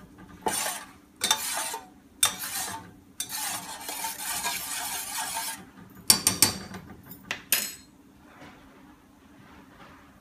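A slotted metal spoon stirring and scraping herbs in oil around a stainless steel pot in several strokes, the longest lasting about two seconds. About six seconds in come a few sharp taps of metal on metal.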